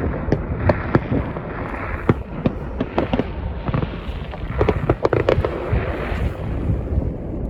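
Fireworks going off in quick succession: many sharp bangs and cracks over a steady crackle, thickest about five seconds in.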